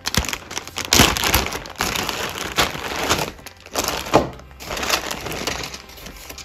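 Clear plastic bags full of LEGO Technic parts being handled, the plastic film crinkling and rustling, with louder crackling handling about a second in and again near four seconds.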